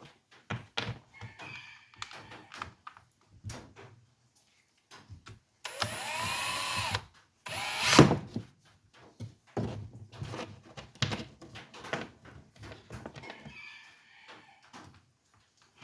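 Clicks and knocks of tools and chainsaw parts being handled and fitted back together, with a small power tool motor running for about a second, spinning up and back down, a little before the loudest knock about eight seconds in.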